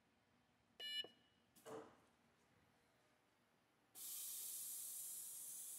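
A single electronic beep from the AXYZ CNC router's control keypad as a key is pressed. About four seconds in, a steady air hiss starts as the automatic tool changer pushes tool holder number one up.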